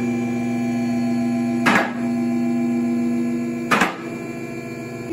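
Two-post car lift raising the car: its hydraulic pump motor hums steadily while the safety ratchets clank twice, about two seconds apart. The ratchets are the catches that hold the car up if the hydraulics fail.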